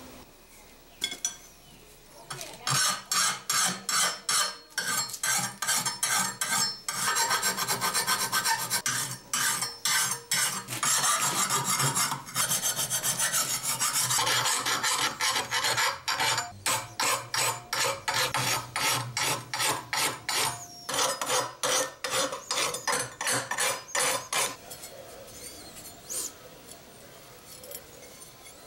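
Hand file rasping along the edge of a forged leaf-spring steel garden trowel blade held in a vise, in quick repeated strokes of about three a second. It starts a couple of seconds in and stops about four seconds before the end.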